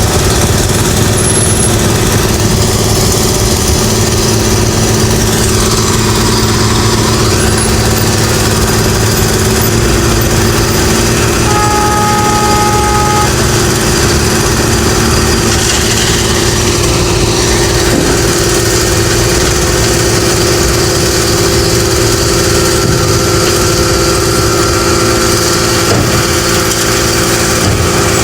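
Engines of road construction machinery running steadily. A horn sounds once briefly about midway.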